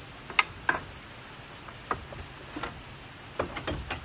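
Scattered light clicks and knocks, about half a dozen spread irregularly across a few seconds, with quiet in between.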